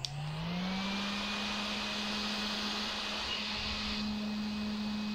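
Small handheld fan with plastic blades spinning up, its motor hum rising in pitch over about the first second, then running steadily with an even rush of air.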